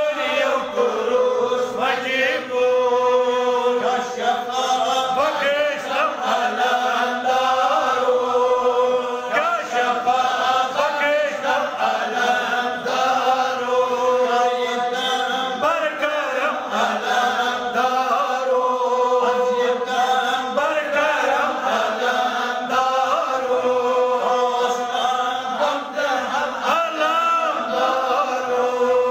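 Devotional chanting: a voice sings a slow melody in long, held notes that run on without a break.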